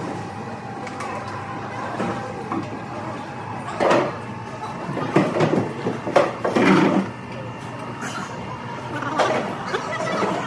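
Food court ambience: a steady hum of room noise and distant diners, with a few louder, irregular bursts of sound in the middle.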